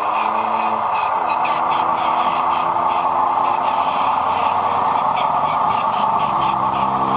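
Radio-controlled dump truck running: a steady whir from its motor and gears, with a lower engine-like drone that shifts pitch about a second in and again near the end, and light clattering throughout.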